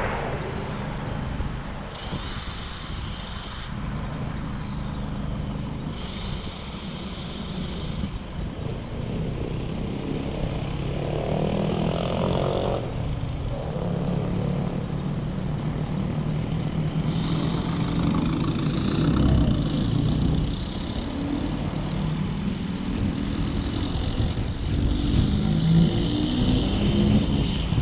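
Car engine and road noise: idling in slow traffic, then accelerating away, getting louder, with the engine pitch rising in steps in the second half.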